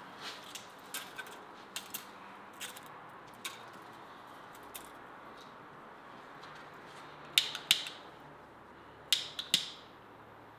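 Light wooden knocks as kindling sticks are set against each other in a brick oven, then two pairs of sharp, loud strikes about seven and a half and nine seconds in as a light is struck for the fire, the last one trailing off briefly.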